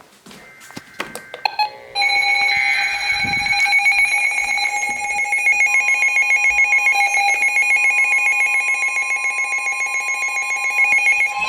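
Weather radio sounding its alert alarm for a severe thunderstorm warning: a loud electronic alarm tone with a fast pulsing that starts about two seconds in, after a few short clicks and beeps.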